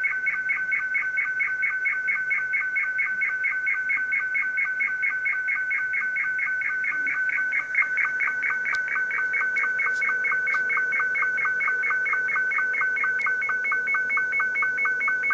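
Slow-scan television (SSTV) image signal from Ham Radio Deluxe's SSTV module, being transmitted through an ICOM IC-7300: an electronic warbling tone that pulses steadily about six or seven times a second, one sync pulse per picture line.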